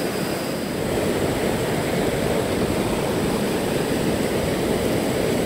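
Fast river water rushing over rocks in rapids: a steady, unbroken rush of noise.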